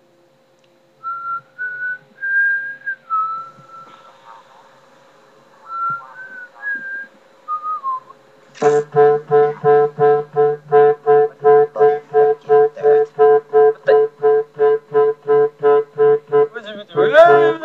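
A short tune whistled, its notes sliding between pitches. About eight and a half seconds in, music starts: a reedy, brass-like note repeated staccato at about two and a half notes a second, with a brief swooping sound near the end.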